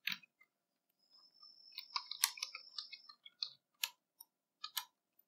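Computer keyboard typing: a run of irregular, light key clicks as a command is typed.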